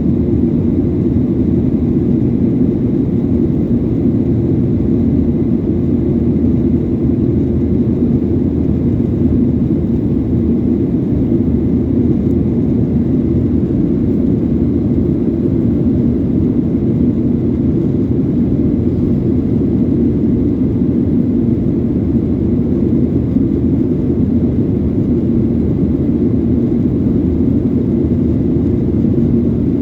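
Steady low drone of a passenger airliner's engines and airflow heard from inside the cabin, unchanging throughout.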